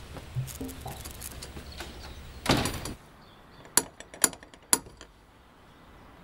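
A door bangs shut about halfway through, then a brass door knocker raps three times on a wooden front door, the knocks about half a second apart.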